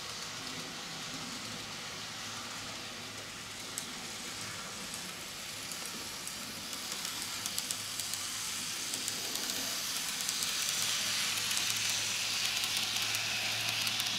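Kato N gauge Type 8620 steam locomotive model and Series 50 carriages running along the track: a hiss of wheels and drive that grows louder about halfway through as the train approaches and passes close by, with a run of fine rapid clicks from the wheels over the rails.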